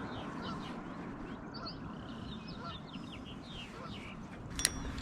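Birds calling outdoors: many short chirps over a rough background hum, with a single sharp click about four and a half seconds in.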